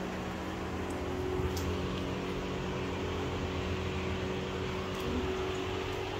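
Steady low mechanical hum with a held pitch, like a household appliance or fan running, with a couple of faint clicks.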